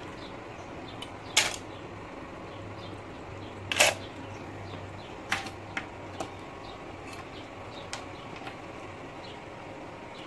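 Sharp plastic clicks and taps from a toy fishing game: rods, hooks and plastic fish knocking against each other and the plastic tub, about seven scattered clicks with the two loudest near the start and middle.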